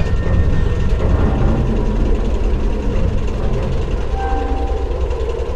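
A railway locomotive running with a steady, heavy low rumble, and a brief faint tone about four seconds in.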